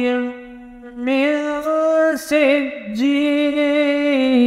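Solo voice reciting the Quran in the melodic, chanted style of tilawat, with ornamented turns and then a long steady held note in the second half.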